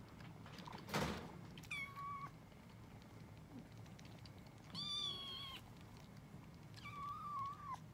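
Kittens meowing three times, short steady high-pitched meows, while begging for the milk bottle. A brief loud rustling bump about a second in.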